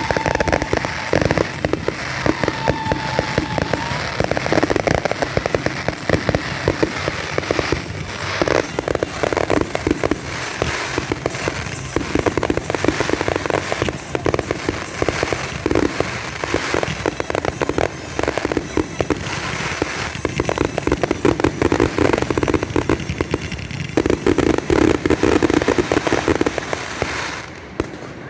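Fireworks display: a dense, continuous barrage of bangs and crackling, with two short whistles near the start, stopping suddenly near the end.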